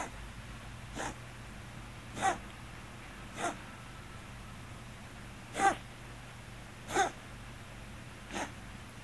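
Scottish Fold cat's hiccup-like cough: short sharp coughs, about seven of them, one every one to two seconds. The owner links this cough to the cat's hypertrophic cardiomyopathy.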